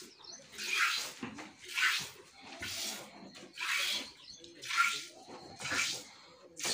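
Hand-milking a cow: streams of milk squirting from the teats into a small stainless-steel pot, in hissing spurts about once a second.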